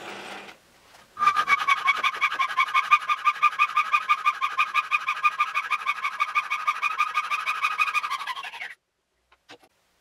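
Hacksaw cutting a thin metal rod held in a bench vise: fast, even strokes, about five a second, each with a pitched ringing screech, stopping abruptly near the end. A drill press running fades out just at the start.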